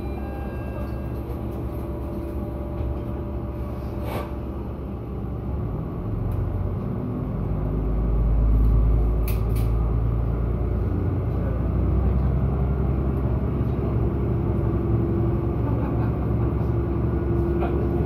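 Diesel railcar's engine idling at a standstill, with one sharp knock about four seconds in, then the engine note rises and a low rumble swells as the railcar pulls away and gathers speed.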